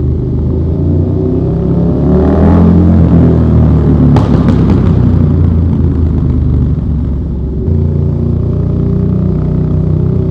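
KTM 1290 Super Duke R's V-twin engine through an Austin Racing V3 150mm exhaust, rising in revs about two seconds in, with a few sharp cracks around four seconds in, then running on at steady speed, echoing inside a road tunnel.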